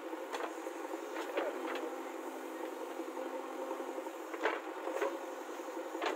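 JCB 3DX backhoe loader's diesel engine running steadily while the backhoe arm works the bucket, with a few sharp knocks scattered through, a group of three about a second in and two more near the end.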